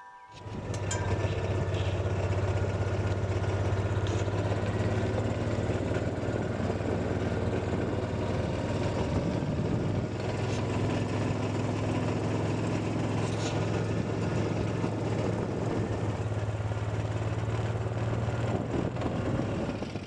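Kawasaki Mule utility vehicle's engine running steadily with a low hum, a few faint clicks over it.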